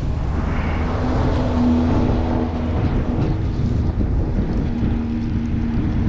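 Wind buffeting the microphone with a low rumble, and a steady engine hum that comes in about a second in, fades, and returns near the end.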